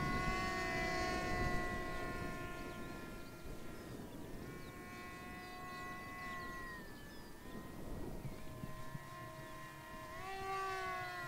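Twin brushless electric motors and propellers of a HEE WING T-1 Ranger RC wing whining steadily in flight, with the pitch stepping up about four seconds in, back down a few seconds later, and up again near the end.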